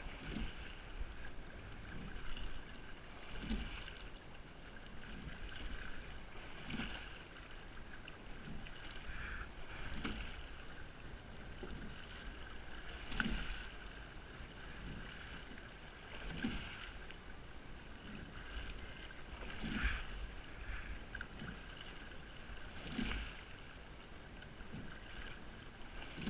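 Crew sculling a rowing boat at a steady, relaxed stroke rate. A knock and swish of oars and sliding seats comes about every three seconds, roughly eighteen strokes a minute, over the sound of the water along the hull.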